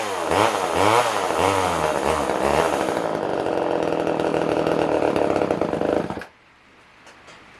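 Poulan Wood Shark two-stroke chainsaw running, its revs surging up and down about every two-thirds of a second, then holding steadier before it suddenly dies about six seconds in. The engine is not drawing enough fuel to keep running, which the owner puts down to a carburettor needing a rebuild kit.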